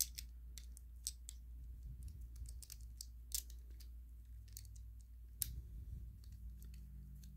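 Faint, irregular small clicks and light scrapes of the screw-in bottom piece of a brass Colibri solid-state lighter being threaded back on by hand, closing the battery compartment. A low steady hum lies underneath.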